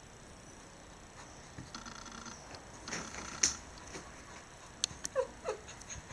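Cat moving on a bed quilt, with a few soft rustles and a sharp tap about three and a half seconds in, then two short falling mews near the end.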